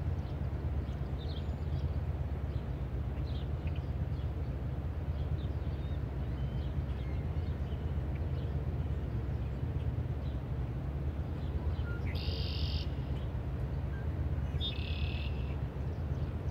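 Faint bird chirps over a steady low hum, with two short, buzzy calls in the second half.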